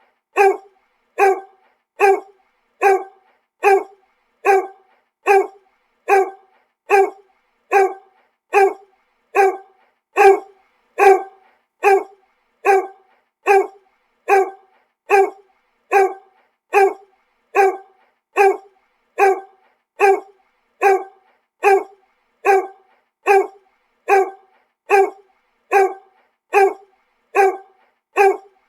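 A dog barking over and over at a steady, even pace, about three barks every two seconds, each bark alike.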